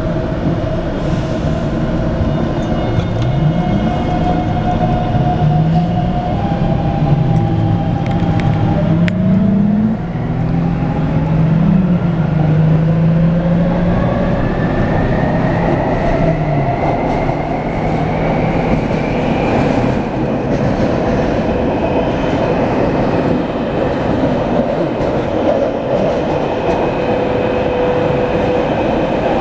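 Taipei Metro C321 refurbished train's traction inverter whining as the train accelerates: its tones step up in pitch over the first ten seconds or so, then a higher whine rises steadily until about twenty seconds in. After that the train runs on at speed with steady rail noise. The uploader labels this inverter sound abnormal.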